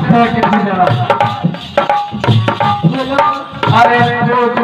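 Indian folk music: a hand drum plays a quick rhythm of strokes under a sustained melodic instrument line.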